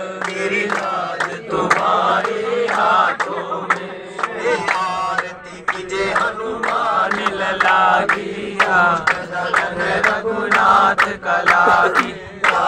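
A group of men singing a Hindu bhajan together, with hand-clapping keeping a steady beat.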